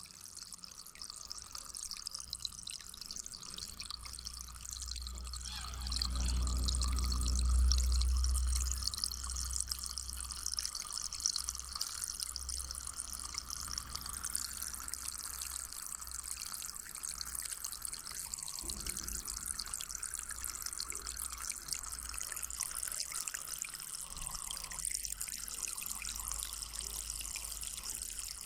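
Spring water trickling and babbling steadily. A low rumble swells from about five to nine seconds in.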